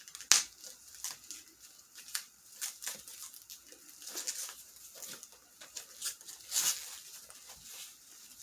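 Plastic packing material being pulled and picked off a resin ball-jointed doll, crinkling and rustling in irregular short crackles, with sharper crackles about a third of a second in and again around six and a half seconds in. The material clings in the doll's joints and does not tear.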